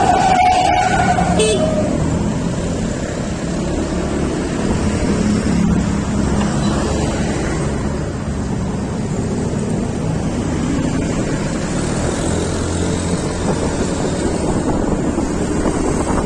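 Road traffic noise: a vehicle horn sounds for about a second at the start, then a steady rumble of engines and road noise runs on.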